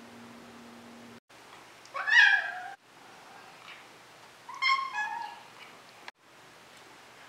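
Brown tabby Maine Coon meowing twice, about two and a half seconds apart. Each meow is loud and drops in pitch toward its end.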